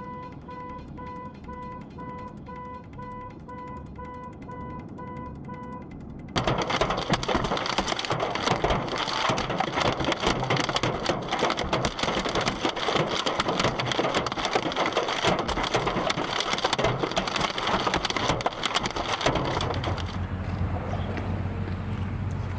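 A rapid repeating beep, then about six seconds in a sudden loud, dense patter of heavy rain. Near the end the patter gives way to a low rumble.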